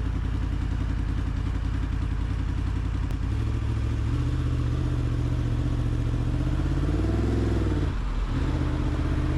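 Yamaha MT-10's crossplane inline-four engine running at low road speed, heard from the rider's seat. A little over three seconds in it pulls harder, and about seven seconds in the revs rise and fall, dipping briefly before settling again.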